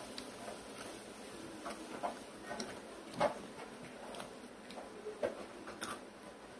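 Quiet eating sounds: a few scattered light clicks and crunches, with gaps between them, as two children pick crumbs off a plate with their fingers and chew them.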